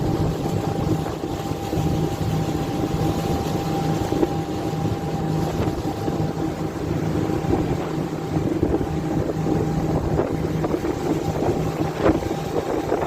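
An air conditioner unit running: a steady mechanical hum with a constant whine and rushing air, with a few light knocks near the end.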